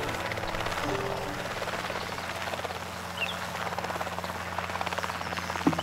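Steady low mechanical hum with a fast, even beating, of the kind a helicopter's rotor makes, holding one pitch throughout. A short sharp swish comes right at the end.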